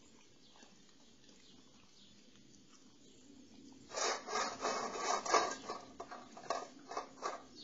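Dog eating from a stainless steel bowl: after a few quiet seconds, a quick irregular run of loud, noisy eating strokes against the metal bowl starts about four seconds in and trails off near the end.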